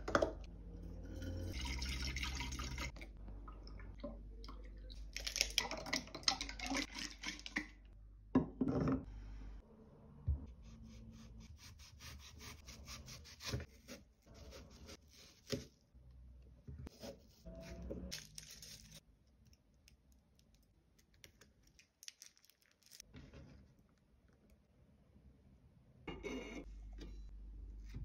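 Milk poured into a glass hookah base in two long pours, then a knife carving out an apple's flesh with a run of small crisp scrapes and clicks. A steady hiss comes in near the end.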